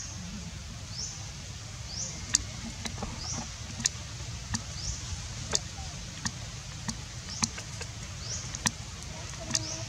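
A series of sharp clicks or snaps, roughly one a second from about two seconds in, over a short high chirp that rises in pitch and repeats every second or so, with a steady low rumble underneath.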